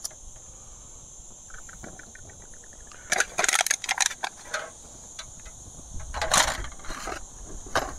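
Fast ticking, then a cluster of sharp clicks and short scraping bursts, from lighting a citronella trench candle in a metal tin. Insects chirr steadily in the background.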